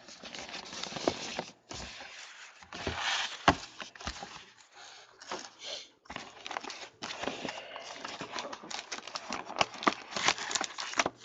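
Trading card box packaging being torn and opened by hand: irregular crinkling and rustling with many sharp clicks and snaps.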